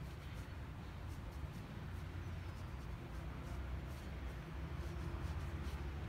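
Damp sponge rubbing and scraping over the surface of a turning clay jug as it is smoothed, over a steady low rumble.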